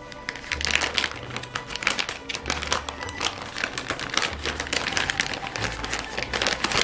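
Crinkling packaging of mozzarella cheese being opened and handled: dense, irregular crackles. Background music with a low bass line runs underneath.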